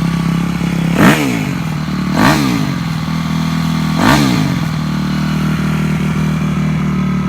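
2002 Yamaha YZ250F's four-stroke single-cylinder engine, warmed up, idling steadily through an FMF aftermarket exhaust. The throttle is blipped three times, about a second in, at about two seconds and near the middle, and each rev climbs and drops back to idle quickly.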